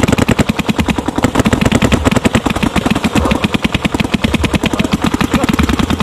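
Paintball markers firing in a rapid, continuous stream of shots, many shots a second, as in a firefight.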